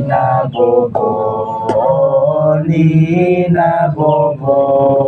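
Unaccompanied singing of a dendang lullaby, a chant-like melody in long, drawn-out notes that glide from pitch to pitch, with short breaths between phrases.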